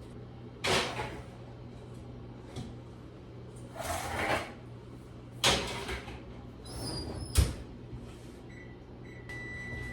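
Oven door and baking tin being handled: several separate knocks and bumps, the loudest a sharp thud about seven seconds in, over a steady low hum. Near the end a high electronic beep starts.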